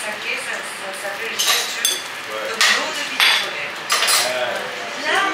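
Metal utensils clinking against a small sauce pot and plates: several sharp clinks, some ringing briefly.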